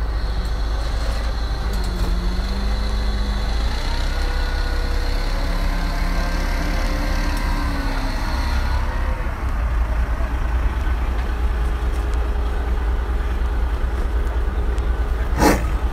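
Crane truck's engine running with a steady low rumble. A thin high whine sits over it for the first nine seconds or so, and a short sharp burst comes about fifteen seconds in.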